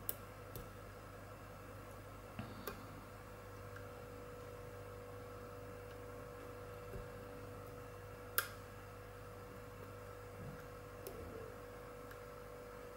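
Sparse, faint clicks from a pick and tension tool working the pins of a brass six-pin euro cylinder lock: the small clicks of pins setting as the core begins to turn. The sharpest click comes about eight seconds in, over a steady faint hum.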